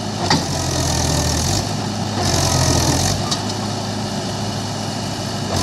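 Mahindra tractor's diesel engine running steadily while towing a loaded trailer through mud. A hissing noise comes and goes twice, and there are a couple of short clicks.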